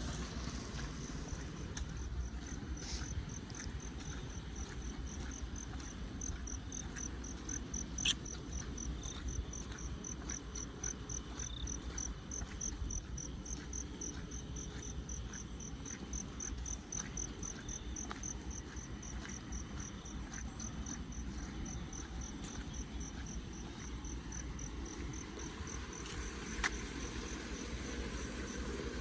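A cricket chirping in a steady, high-pitched rhythm of about four chirps a second, over a constant low rumble. A sharp click comes about eight seconds in and another near the end.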